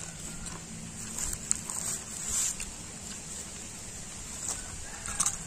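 Outdoor background noise with a faint low hum in the first second or so and a few soft clicks and rustles scattered through.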